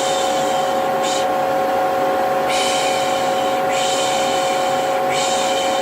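Vacuum cleaner motor running steadily with a constant hum, overlaid with a person's repeated shushing 'shh' sounds. The shushes come as a short one about a second in, then two long ones and another near the end. It is the vacuum-and-shushing noise used to soothe a baby.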